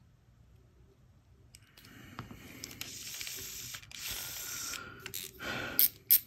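Daiwa Steez A baitcasting reel being cranked after its gear was freshly greased: a steady whir of the turning gears and spool with faint ticks, followed by a louder stretch and two sharp clicks near the end.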